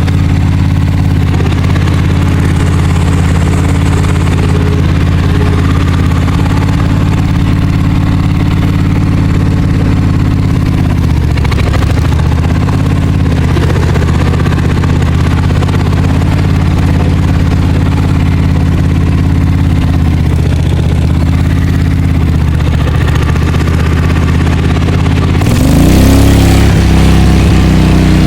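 V-twin engine in a Cub Cadet 106 garden tractor running steadily through its mufflers, with brief dips in speed, then revving up and getting louder near the end.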